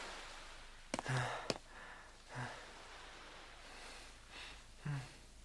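Faint cartoon soundtrack over a low hiss: two sharp clicks about a second in, then three brief, low, breathy sounds from a character's voice, like sighs.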